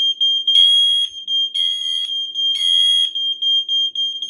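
Nest Protect smoke and carbon monoxide alarm sounding during its self-test. It gives loud, high-pitched beeps about once a second, three in a row followed by a short pause, over a steady unbroken tone at the same pitch.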